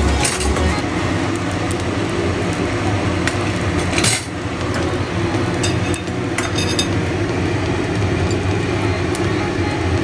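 Steady low kitchen hum with a few light clinks and knocks of cookware and utensils, the sharpest about four seconds in.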